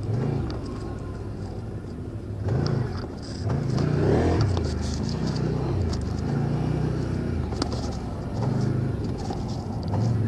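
ATV engine revving up and down several times, the pitch rising and falling in repeated surges, with scattered sharp clicks and knocks.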